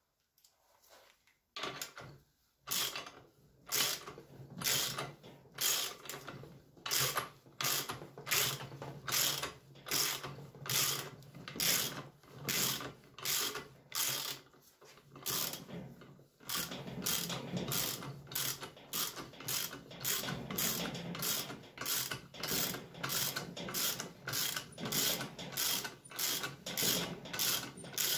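A hand tool working on a cylinder head in a steady back-and-forth rhythm of short metallic strokes, about two a second, starting about two seconds in with a brief lull near the middle.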